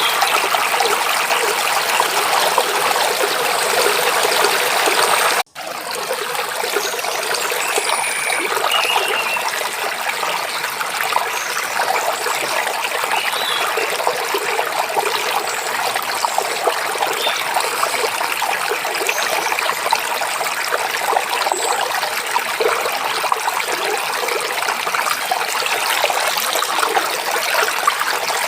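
Mountain stream babbling and trickling over rocks in a steady, even rush, with a few faint high bird chirps over it. The water sound drops out for an instant about five seconds in, then resumes.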